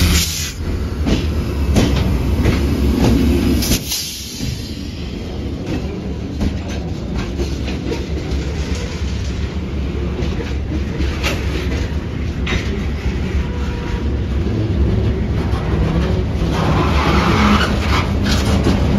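Freight train rolling slowly past: the CSX diesel locomotives' engines run loudly for the first few seconds and fade as they go by, then loaded centerbeam lumber flatcars follow, their steel wheels rumbling and clicking over the rail joints.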